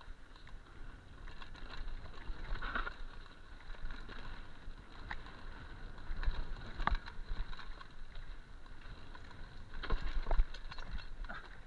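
A mountain bike descending a dirt singletrack, heard from a camera on the rider. Tyre rumble and wind on the microphone run under irregular knocks and rattles from the bike over bumps, the loudest about seven and ten seconds in.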